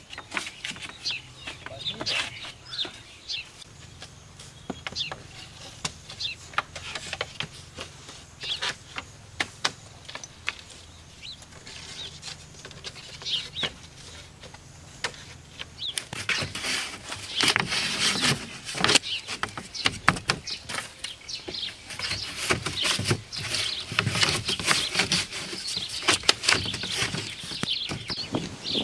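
Bamboo poles and split-bamboo slats knocking and clattering as they are handled and fitted into a bamboo frame: scattered sharp clicks at first, then a busier run of knocks through the second half.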